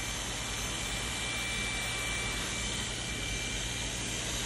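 Electric hair clippers running with a steady buzz during a flattop haircut.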